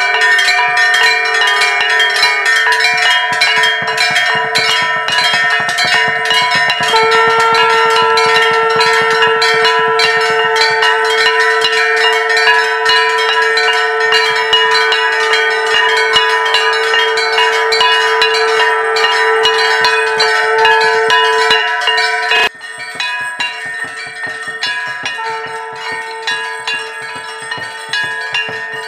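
Temple bells ringing for an evening aarti: several bells of different pitch are struck rapidly and without pause, clanging together. About 22 seconds in the ringing drops suddenly quieter and carries on.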